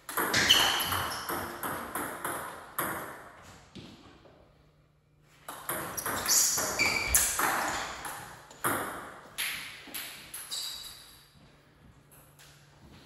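Table tennis ball knocked back and forth between paddles and table in two rallies, about two sharp clicks a second, each with a short ring. The first rally stops about four seconds in; the second starts a second or so later and ends about eleven seconds in.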